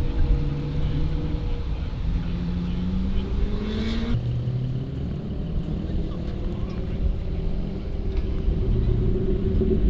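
Car engine under way, its pitch climbing for a few seconds and then dropping abruptly about four seconds in, then running on at lower revs.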